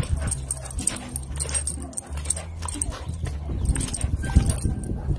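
A dog vocalising in low, drawn-out stretches, with scattered clicks and knocks.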